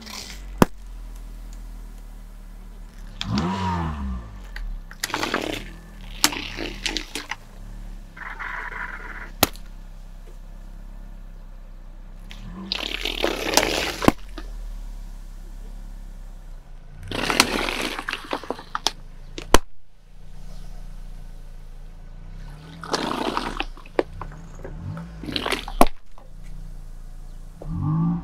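A car tyre rolls over liquid-filled balloons fitted to plastic Coca-Cola bottles. The balloons burst in several separate splashes of spraying liquid, with sharp cracks as the bottles crush. A car engine runs low and steady underneath.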